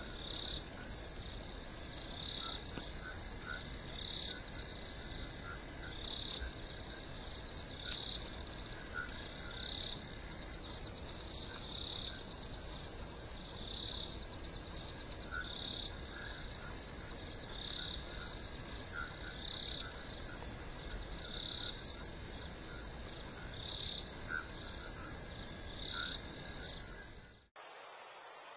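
Night chorus of frogs and insects: a steady high trill, with louder calls repeating every second and a half to two seconds. Near the end it cuts abruptly to a higher, steadier insect trill.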